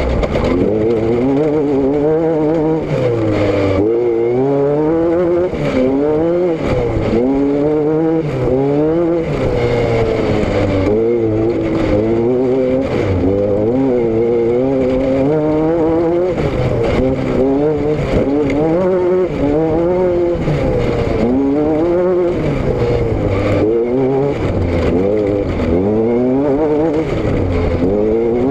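A vehicle engine and exhaust running under way, the revs rising and falling again and again every second or two.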